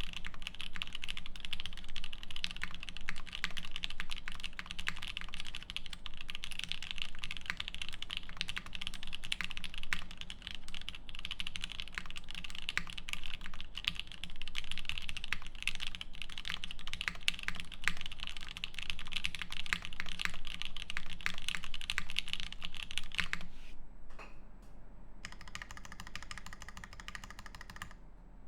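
Fast, continuous typing on a Keycult No.1/65 mechanical keyboard with lubed H1 linear switches, a half polycarbonate plate and GMK keycaps: dense, high keystroke clacks. The typing stops near the end. After a brief near-quiet gap, a fainter, steadier sound with several tones follows.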